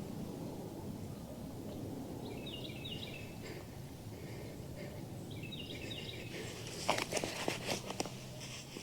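A bird calls twice, each time a quick run of stepped chirps, over steady outdoor background noise. Near the end comes a cluster of sharp crackling rustles, like dry vegetation being pushed through.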